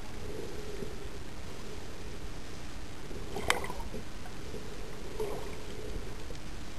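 Underwater ambience: a steady hiss of water noise, with one sharp click about three and a half seconds in and a fainter knock a couple of seconds later.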